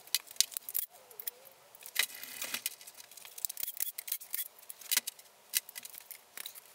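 Hand tool working the oil pump bolts on an opened BMW M54 engine block: short, sharp metallic clicks and clinks coming at an uneven pace.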